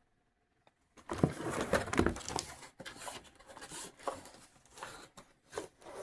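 Packaging being handled: irregular rustling and crinkling with light knocks, starting about a second in.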